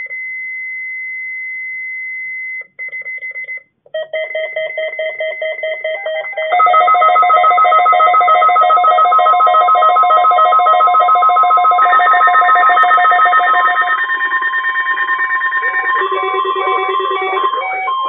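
Several NOAA weather radio receivers sounding their alert alarms, set off by a weekly test of the weather radio warning system. It opens with one steady high electronic tone, turns choppy after about two and a half seconds, and from about four seconds more radios join in, loudest after about six and a half seconds, as a jumble of pulsing beeps at different pitches.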